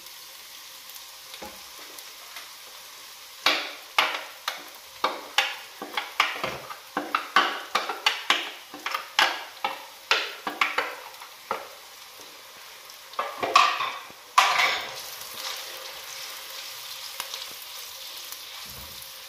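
Onions, ginger and garlic frying in oil in a clay cooking pot, sizzling steadily as salt, red chilli and turmeric are fried in. A silicone spatula scrapes and stirs against the pot in a quick run of strokes from a few seconds in to past the middle, with two louder scrapes soon after.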